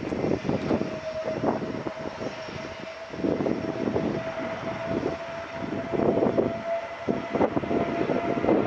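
JF-17 Thunder jet fighter's single Klimov RD-93 turbofan on landing approach: a steady whine over an uneven, gusting rumble.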